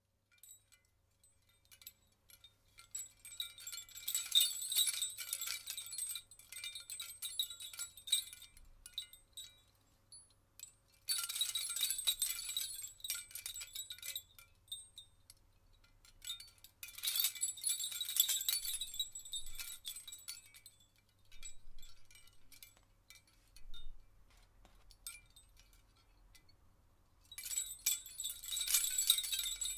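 A hanging string of handmade Indian copper bells jingling together, in bouts of bright ringing that swell and die away every few seconds.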